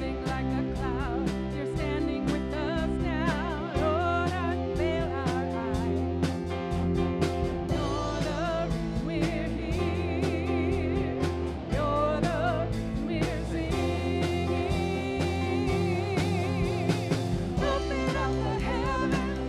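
Live worship band playing a song: singing with vibrato over electric guitar, electric bass, keyboard and a drum kit keeping a steady beat.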